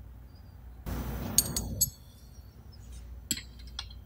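Sharp metal clinks of small fittings and hand tools being handled against a pneumatic air cylinder while an air fitting is threaded in by hand. A rubbing rustle lasts about a second, starting about a second in, with the loudest clinks inside it, and two lighter clinks come near the end.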